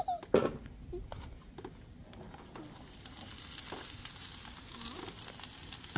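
Sliced bell peppers and onions sizzling on a hot, oiled Blackstone flat-top griddle. The steady sizzle builds from about two and a half seconds in, after a sharp knock and a few clicks near the start.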